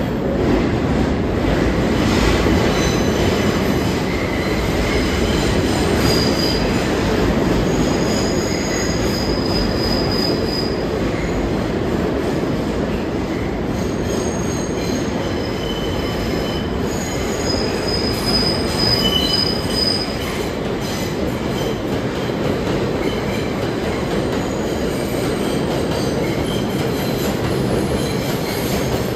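New York City subway trains running through the station with a steady loud rumble. High-pitched metallic wheel squeal comes and goes, strongest from about six to twenty seconds in, as steel wheels grind on curved track.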